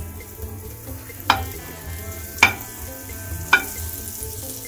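A small piece of butter melting and sizzling in a frying pan, a steady frying hiss. Three sharp clinks, about a second apart, stand out above it.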